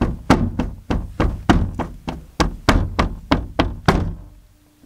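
A steady run of dull thuds, about three a second, fading out near the end.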